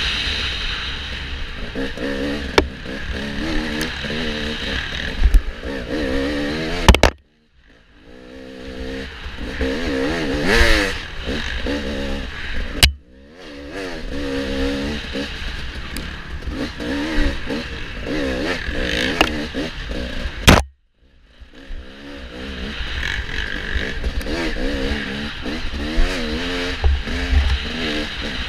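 Dirt bike engine racing off-road, its pitch rising and falling over and over as the throttle is opened and rolled off, with a few sharp knocks. The sound cuts out briefly twice.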